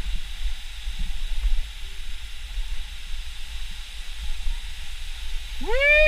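Steady rush of a waterfall with wind rumbling on the microphone. Near the end, a voice calls out once, rising then falling in pitch.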